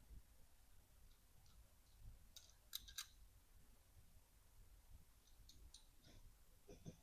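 Faint small clicks of metal parts handled as a KME sharpening system's knife clamp is adjusted by hand: a quick cluster of clicks a couple of seconds in, a few more about two seconds later, with soft low knocks in between.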